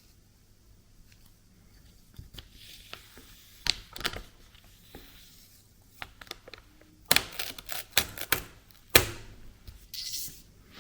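Washi tape being pulled from the roll and torn against the edge of a 3D-printed plastic cutter: light handling clicks and taps, then a cluster of short, sharp rips and knocks near the end.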